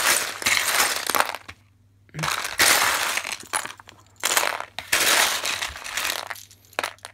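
Loose plastic LEGO bricks clattering and clinking against each other in a cardboard box as a hand rummages through them and picks pieces out. The clatter comes in several bursts with short pauses between them.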